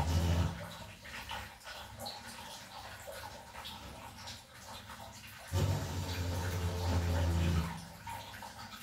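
Water trickling and dripping from the base of an electric geyser while its heating element is being changed, with small ticks of handling. A low steady hum sounds briefly at the start and again for about two seconds past the middle.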